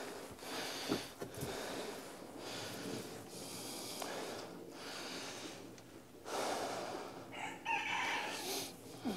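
Young goats moving about in loose hay bedding, with a string of rustling, shuffling noises. Near the end comes a brief animal call about a second long.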